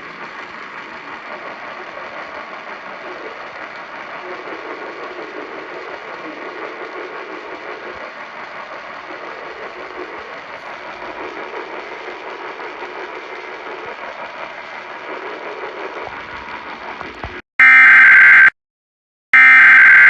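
AM radio reception, hissy and muffled, with faint program audio underneath. Near the end the audio drops out and the Emergency Alert System header starts: loud, raspy digital data bursts about a second long, two of them a second apart, marking the start of an emergency alert.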